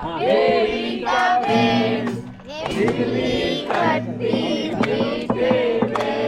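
Music with singing voices in long held, wavering phrases.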